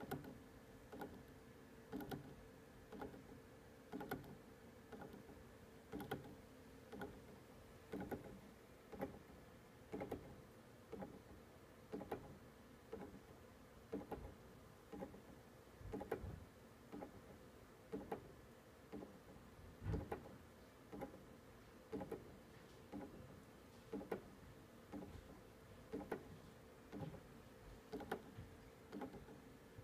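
Prototype bipolar clock stepping motor ticking once a second, every other tick louder, as it steps on each alternating-polarity pulse from a quartz clock circuit boosted by H-bridge drivers. A faint steady hum runs underneath.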